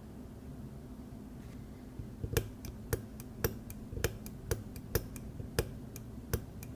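Small, sharp metallic clicks and taps of tools and tiny parts being handled on a pocket watch movement, starting about two seconds in and coming irregularly, a few per second.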